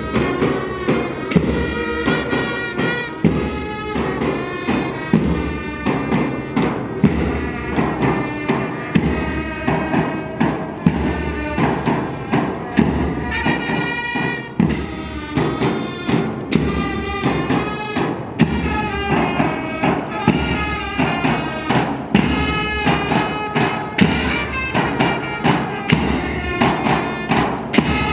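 Upbeat music: a pitched melody over a steady beat of drum strokes.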